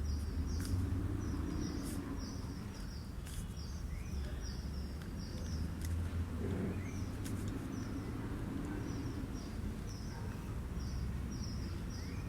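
Background noise: a steady low hum under a run of short, high chirps repeating a few times a second, with a few faint clicks.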